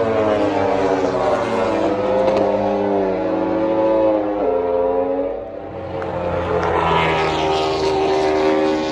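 MotoGP racing motorcycle's four-cylinder four-stroke engine passing through a corner. The pitch falls as the bike slows, drops suddenly about four and a half seconds in, then climbs again as it accelerates away.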